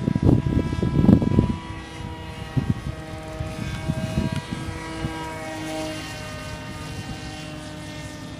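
Homemade RC F-22 Raptor model plane flying overhead: its propeller motor gives a steady whine made of several pitched tones, which shift slightly in pitch a few times. Low buffeting rumble sits beneath it, loudest in the first second and a half.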